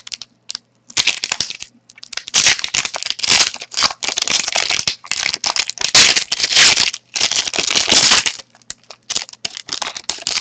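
Wrapper of a trading card pack being torn open and crinkled in the hands, in quick irregular rustles, as the cards are pulled out.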